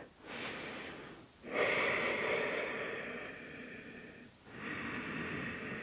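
A woman breathing slowly and audibly while holding a yoga stretch: three long breaths in a row, the middle one the loudest and longest.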